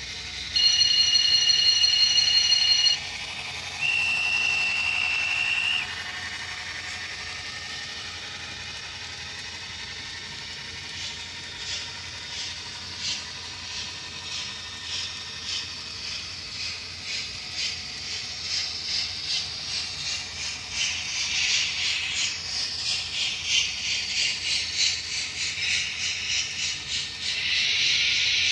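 Model steam locomotive's DCC sound decoder: a chime whistle sounds for about two seconds, a shorter single-note whistle follows, then steam chuffs start up and grow louder and quicker as the engine pulls away.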